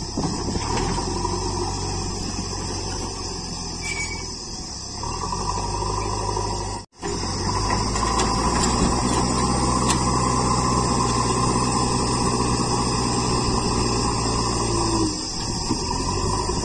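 Diesel engine of a JCB 3DX backhoe loader running steadily under load as its front bucket tips soil and then pushes into loose earth. The sound breaks off for an instant about seven seconds in, then comes back louder and steady.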